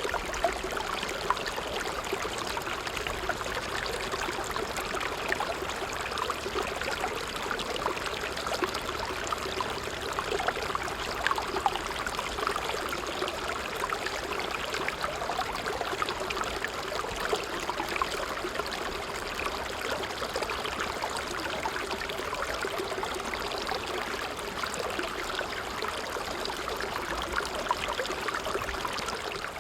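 A creek flowing steadily: a continuous rush of water with many fine splashes and bubbles through it.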